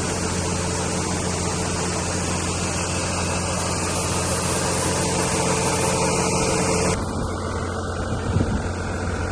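Truck engine running steadily as the truck backs into place, with an abrupt change in its sound about seven seconds in.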